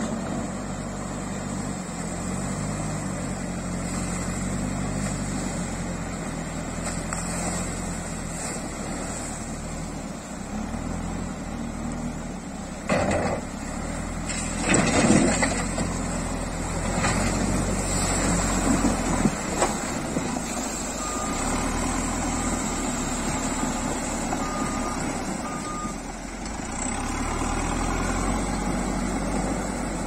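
A JCB 3CX backhoe loader's diesel engine runs steadily under load as the machine drives through shallow river water, with the water churning around its wheels and bucket; the noise grows louder for a few moments about halfway through. A reversing alarm gives short beeps in the second half.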